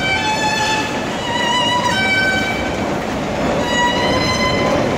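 A violin playing a slow melody of held notes, some with vibrato, over a steady rumble of metro station noise.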